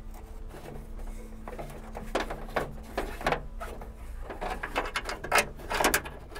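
Clicks and rattles of a trunk latch cable being handled and fed through the sheet-metal inner panel of a Honda Civic trunk lid, with several sharp clicks in the second half. A faint steady hum sits underneath and stops a bit past halfway.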